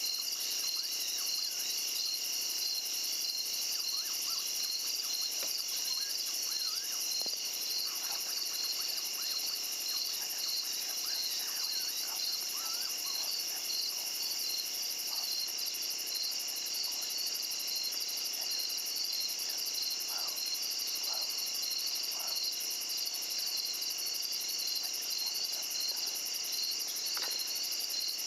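Summer night chorus of crickets and other insects: steady, high-pitched, fast-pulsing trills layered together, with a few faint short chirps scattered through.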